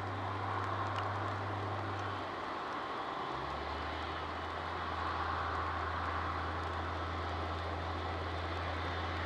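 Airbus A380 on final approach, its four Rolls-Royce Trent 900 turbofans heard at a distance as a steady, even rush of jet noise.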